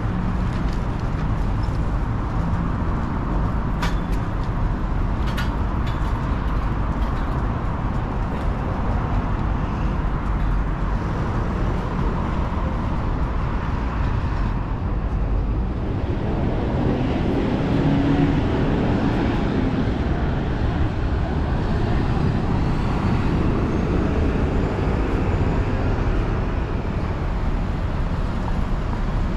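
Road traffic on a city street: a steady rumble of passing vehicles that swells a little past the middle.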